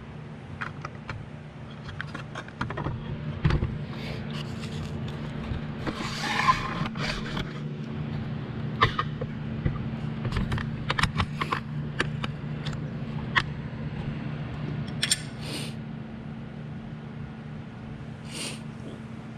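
Metal clinks, taps and knocks of hand tools and loose parts being worked on a lathe's carriage and lead screw, with a scrape about six seconds in, over a steady low hum.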